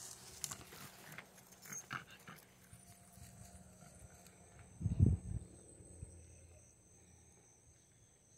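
Rustling and footsteps as hunting dogs and a person move through dry brush, with a loud low thump about five seconds in.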